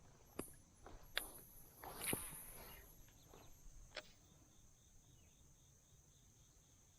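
Faint insects chirping steadily in near silence, with a few sharp clicks and knocks and a brief hiss in the first four seconds.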